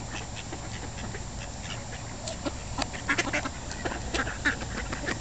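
A group of ducks quacking: many short, irregular calls, thickest in the second half.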